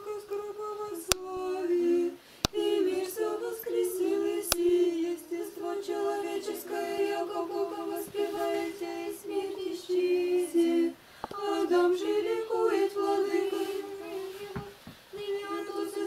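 Unaccompanied Orthodox liturgical chant sung by a woman's voice, held notes moving in small steps, breaking briefly twice. A few sharp clicks in the first five seconds.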